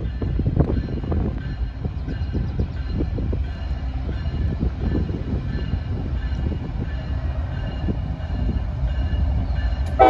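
Approaching train's low steady rumble, with irregular knocks and clatter from the wheels on the rails.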